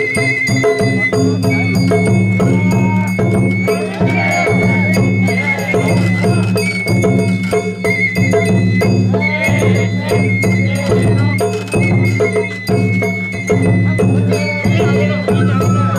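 Sawara festival hayashi played live by the float's musicians: a high flute melody with quick trills over drums and regularly struck metallic percussion.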